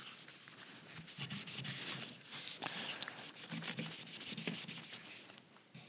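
Soft, repeated rubbing strokes of a dye-soaked rag being wiped along a curly maple guitar neck by a gloved hand.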